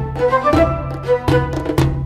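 Background music: a melody over repeated percussive strikes.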